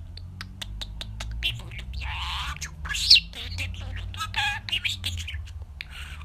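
Budgerigar warbling and chattering in quick high chirps and clicks, with a sharp rising squeak about three seconds in, over a steady low hum.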